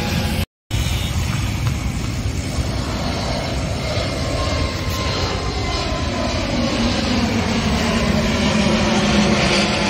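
Steady jet-engine noise of an Airbus A320neo climbing out after takeoff, with a low drone that grows a little louder near the end. The sound cuts out for a moment about half a second in.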